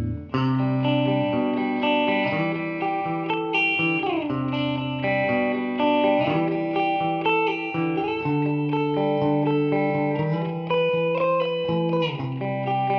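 Electric guitar (Fender Jazzmaster Modern Player) played through an Ibanez DE-7 delay pedal and a simulated Fender Princeton Reverb amp, with notes and chords ringing over one another and a couple of sliding notes.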